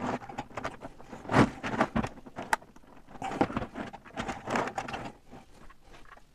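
Plastic building-brick bridge sections of a Biber bridge-layer tank model being handled and set back in place: irregular plastic clicks, knocks and rattles.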